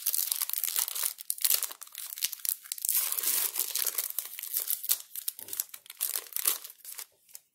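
Foil wrapper of a Pokémon XY Evolutions booster pack crinkling and tearing as it is ripped open by hand, a dense crackle that fades out near the end.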